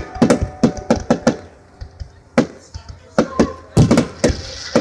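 Aerial fireworks bursting overhead: a quick, irregular string of sharp bangs and pops, several coming close together, with the loudest cluster near the end.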